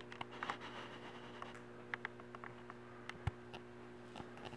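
Quiet indoor room tone with a steady low electrical hum, and scattered light clicks and taps from movement, with one dull thump about three seconds in.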